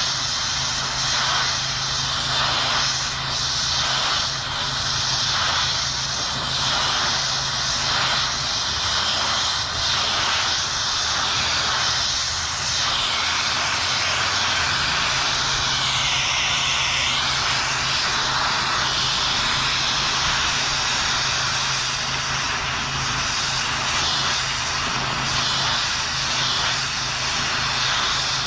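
Multiplaz 3500 water-fed plasma torch hissing steadily as it heats a cast-iron casting and melts brass rod for braze welding, with a low steady hum underneath.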